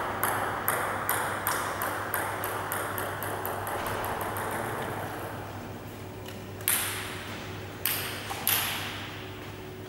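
Table tennis ball bouncing to rest on a hard floor: sharp clicks coming faster and fainter until they run together about four seconds in. Later, three separate louder ball bounces, a second or so apart.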